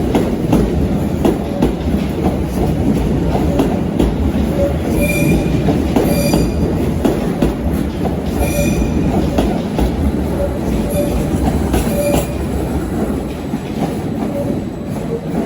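A train moving through the station, its wheels rumbling and clattering over the track with repeated short high squeals from the wheels. The noise eases off near the end.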